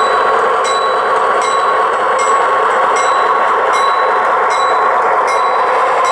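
Model diesel-led passenger train running past close by: a steady hum of motors and wheels rolling on the track, with a light click about every three-quarters of a second.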